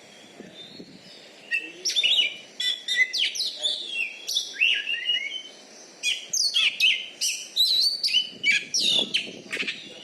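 Oriental magpie-robin (kacer) singing: fast runs of varied whistled notes and sweeping chirps, starting about a second and a half in, with a brief pause about halfway before a second run.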